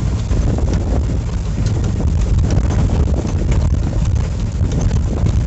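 Tank truck's engine running with a steady low rumble, heard from inside the cab, while the cab rattles and knocks over a rough dirt road.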